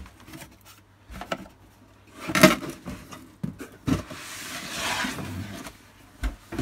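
Packaging being handled as an LCD monitor is lifted out of its cardboard box: polystyrene and cardboard scraping and knocking. There is a loud scrape about two and a half seconds in, a longer rustle around five seconds in, and a knock near the end as the monitor is laid on a wooden desk.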